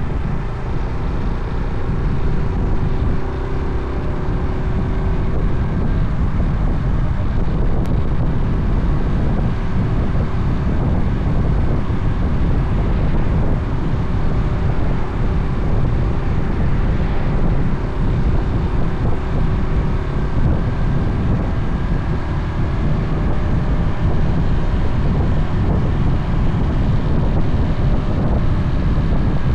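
Wind buffeting a camera microphone on a moving motorcycle, a steady low rumble, with the motorcycle's engine running at cruising speed faintly underneath.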